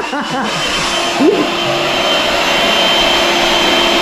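Electric air pump inflating an air mattress, its motor whine rising over the first second, then running steadily.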